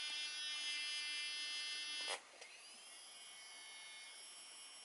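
Small electric fan of a model locomotive's dynamic smoke generator whining steadily, with no decoder sound playing. About two seconds in there is a click, and the whine drops to a quieter whir that slides down in pitch.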